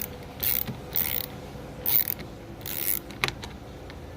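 A ratchet driving a T25 Torx bit, clicking in a series of short bursts as it is swung back and forth to loosen screws. A single sharp click comes a little after three seconds in.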